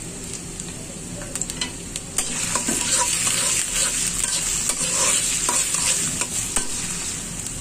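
Chopped onion, green chillies and garlic sizzling in hot oil in a metal karahi, with a metal spatula stirring and scraping the pan. The sizzle grows louder about two seconds in, once the stirring starts.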